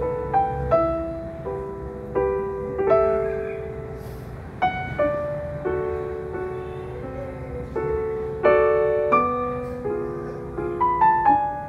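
Slow solo piano music, single notes and chords struck and left to ring out.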